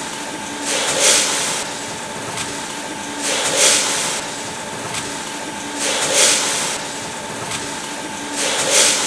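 Vertical form-fill-seal bagging machine running: a steady machine hum, broken four times by a loud hiss about two and a half seconds apart, one per pouch cycle, as the pneumatic sealing jaws work.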